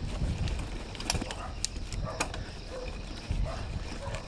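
Mountain bike rolling over a stone-paved trail: a steady low rumble of tyres and wind, with sharp clicks and rattles from the bike as it crosses the stones. A few short animal calls sound now and then in the background.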